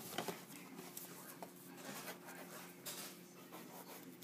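Cardboard camera box being handled and slid open: a sharp knock at the start, then soft scraping, rustling and small ticks of cardboard and paper. A faint steady hum runs underneath.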